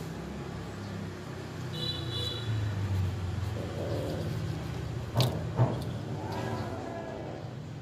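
A kitten chewing shrimp shells, with two sharp crunching clicks about five seconds in as the loudest sounds, over a low steady rumble of traffic.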